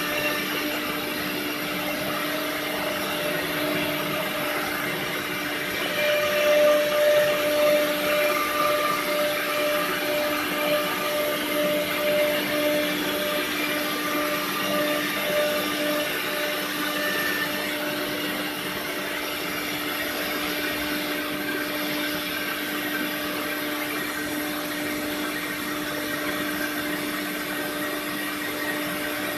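CNC router spindle running at a steady pitch as the gantry head machines a wood panel, with a rushing noise underneath. It gets a little louder from about six seconds in, then settles.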